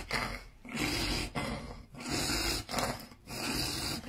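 A child's rhythmic, snoring-like breaths during an epileptic seizure, about one and a half a second.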